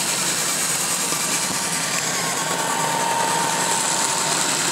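Roomba robot vacuum cleaner running, a steady whirring noise with a faint thin whine.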